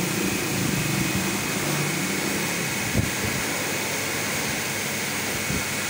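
Small high-pressure plunger washer pump running steadily, its water jet hissing hard from the spray nozzle over a low hum, with one short knock about halfway through.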